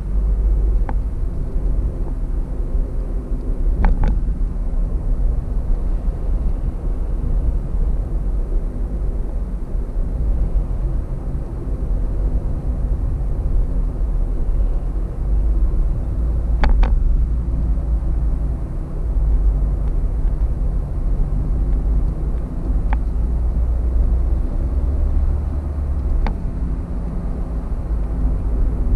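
Car interior on the highway: a steady low rumble of road and engine noise while cruising, with a few short sharp ticks now and then.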